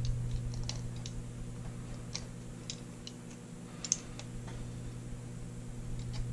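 Faint, scattered light metallic clicks and taps of small steel revolver parts and a pin punch being handled during reassembly, with one sharper click about four seconds in, over a steady low hum.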